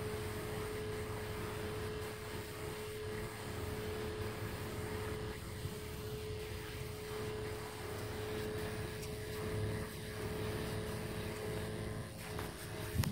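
Steady drone of a power stain sprayer's pump running, with one constant tone over a low hum, as a spray wand sprays stain. A short knock near the end.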